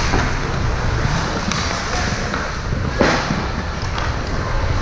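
Steady noise of a youth game in play, crowd and play sounds blended together, with one sharp knock about three seconds in.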